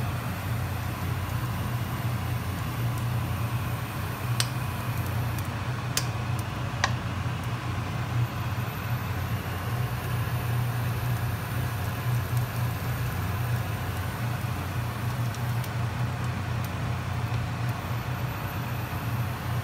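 Steady low hum under the faint sizzle of butter melting in a nonstick frying pan, with three sharp clicks of a utensil against the pan between about four and seven seconds in.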